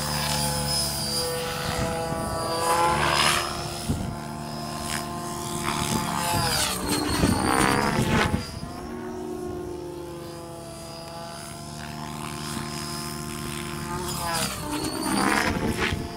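Compass 7HV electric RC helicopter in flight: the main rotor and motor give a whine with several harmonics that rises and falls in pitch as it manoeuvres, swelling louder about 3, 7 and 15 seconds in.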